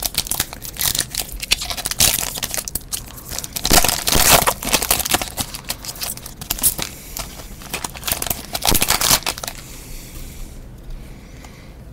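Foil wrapper of a 2014 Platinum NFL trading card pack being crinkled and torn open by hand: a dense run of crackles and rips, loudest in the first half, that dies down about ten seconds in.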